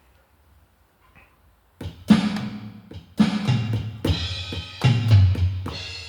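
Donner drum kit being played: after a quiet start, a run of drum strikes begins about two seconds in. Deep drum thuds come with ringing cymbal-like tones, the strikes spaced about half a second to a second apart.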